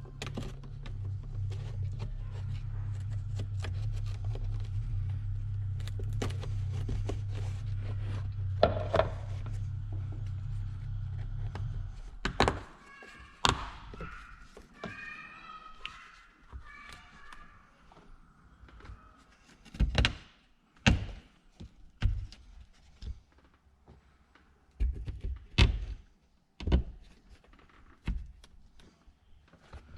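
A steady low hum that cuts off about twelve seconds in, then a brief squeaky chirping and a scattered series of knocks and thunks from parts being handled and fitted inside a car's interior.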